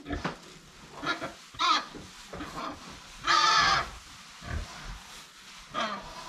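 Pigs calling in a run of short grunts and squeals, the loudest a longer squeal about three seconds in.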